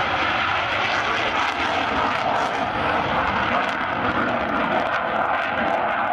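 MiG-29's twin Klimov RD-33 turbofan engines at high power as the fighter lifts off and climbs steeply away: a loud, steady jet noise.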